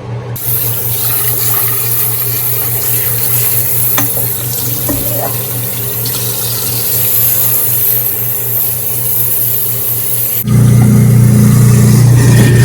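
Kitchen tap running into the sink, rinsing drained, half-cooked rice with clear water, over a steady low hum that grows louder near the end.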